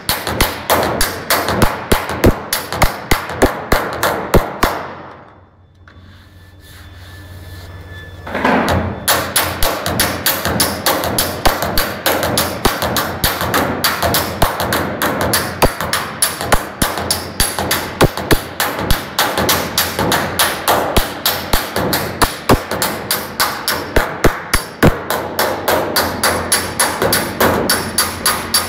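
Hand hammer beating the rusted sheet-metal roof edge of a 1960 Chevrolet Impala sport sedan during body repair: quick, even blows, a few a second. The blows stop for a few seconds about five seconds in, then resume.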